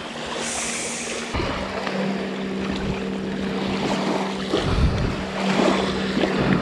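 Wind and waves along a shoreline, with a steady low hum joining about a second and a half in.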